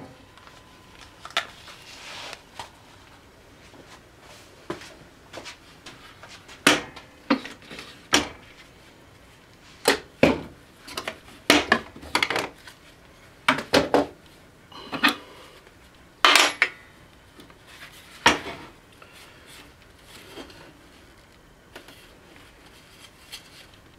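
Irregular wooden knocks and clacks of a plywood pulley and its wooden pivot jig being handled and set down on a table saw. The knocks are thickest in the middle and die away near the end.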